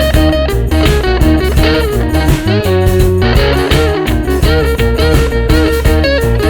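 Background music: electric guitar playing a bluesy melody over bass and drums.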